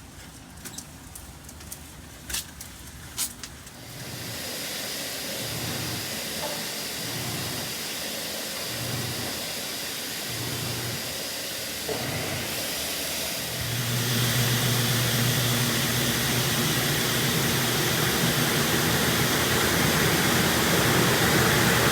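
Steady machine noise: a hiss that comes in about four seconds in, joined by a louder low hum about ten seconds later.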